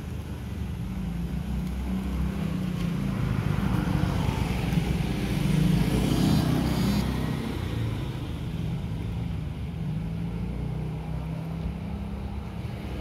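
Motor vehicle engine rumble from nearby road traffic, rising to its loudest about halfway through as a vehicle passes, then fading back to a steady low rumble.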